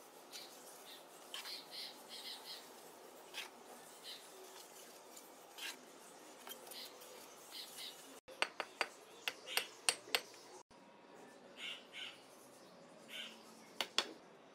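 A mason's steel trowel scraping mortar along the top of a brick wall and tapping bricks into place, with short scrapes and sharp clinks; a quick run of loud clinks comes about two-thirds of the way in, and two more come near the end.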